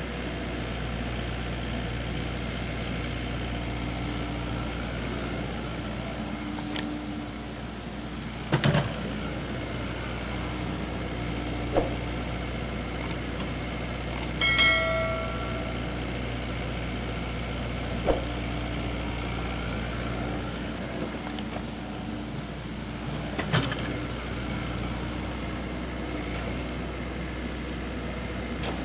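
Excavator engine running steadily, with a few sharp knocks and clanks now and then and a short pitched tone about halfway.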